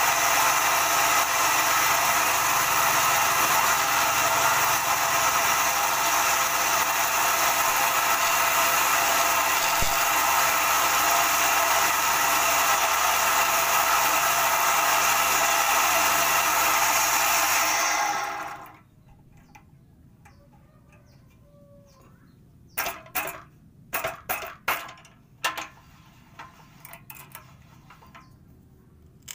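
Homemade wood lathe running steadily with a long metal tool held against the spinning wooden spindle, then switched off and running down about two-thirds of the way in. A few sharp light knocks follow near the end.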